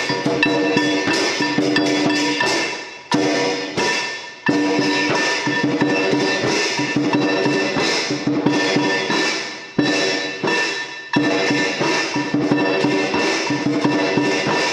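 Background music led by percussion: sharp strikes recur roughly every second and a half, with ringing tones sustained between them.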